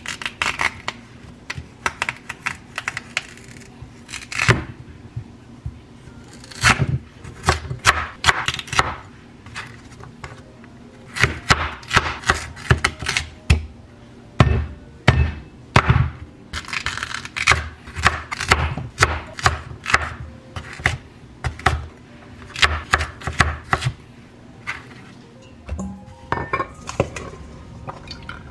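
A kitchen knife chopping raw sweet potato on a wooden cutting board: sharp knocks in quick runs with short pauses between them.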